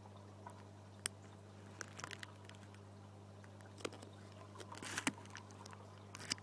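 Faint, steady low hum with scattered small clicks and crackles over it, bunched around two seconds and five seconds in.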